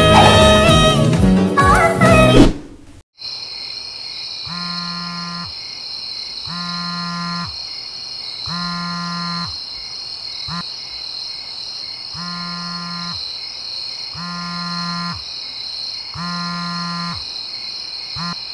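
Background music ends about two seconds in. After a brief silence a steady high-pitched insect drone sets in, and a mobile phone buzzes on vibrate with an incoming call: a buzz of under a second roughly every two seconds, eight times.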